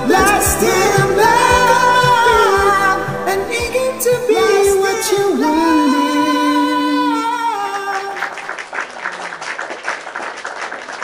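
A man sings the closing lines of a soft-rock ballad over a backing track, ending on a long held note about seven and a half seconds in. Applause follows and fades out.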